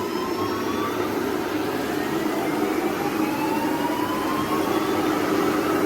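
Water rushing steadily from a burst fire-sprinkler (suppression system) pipe. A faint tone glides slowly upward in pitch over it.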